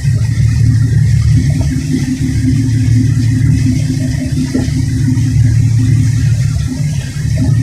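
Tugboat's diesel engines running steadily in a deep, even drone with a steady hum above it, working hard as the tug pushes a ship.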